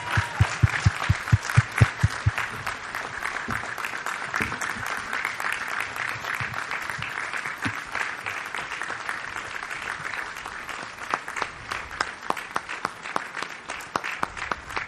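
Crowd applauding, with a few loud, quick claps close by in the first couple of seconds, then steady applause that swells a little near the end.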